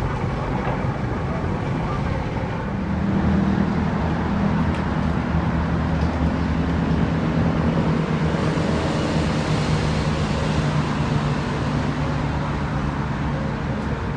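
A motor engine running at a steady pitch, coming in about three seconds in and holding, over continuous background noise.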